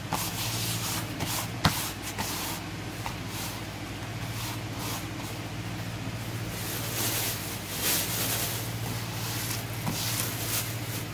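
Soft rustling and brushing as stuffed fabric pot holders are handled and patted on a tabletop, with one sharp click about two seconds in, over a steady low hum and hiss.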